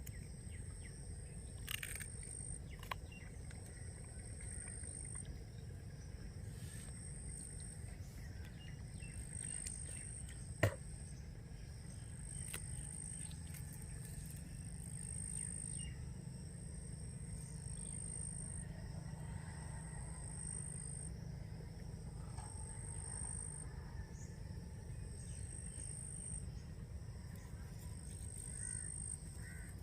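Outdoor ambience: an insect's high, thin buzzing call in pulses of a second or two, repeating every few seconds over a low rumble. One sharp click comes about ten seconds in.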